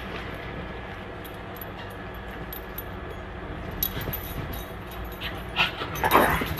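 Pug making noises as a pug-shaped ceramic mug is held up to its face, with louder sounds near the end as it moves off.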